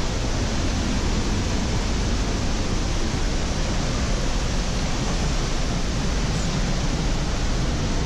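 Pailón del Diablo waterfall: a loud, steady rush of falling water, close by.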